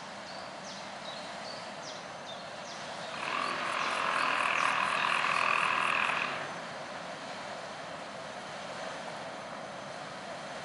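A loud pulsed animal call lasting about three seconds, in the middle, over steady outdoor background noise, with a few short high chirps before it.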